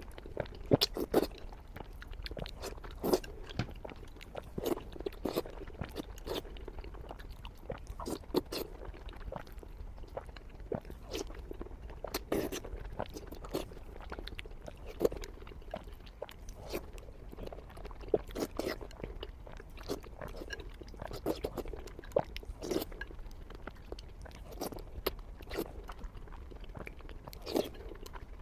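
Close-miked chewing of salmon and noodles: irregular short mouth clicks and smacks of eating.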